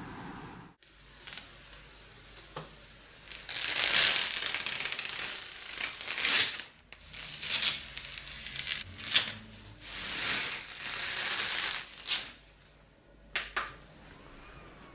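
Packaging being handled, crinkling and tearing in irregular bursts, with a few sharp clicks and a short double crinkle near the end.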